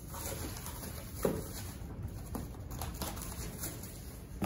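Packaging being handled: a plastic parts bag rustling and cardboard boxes bumping on a workbench, with a few short knocks, the loudest about a second in.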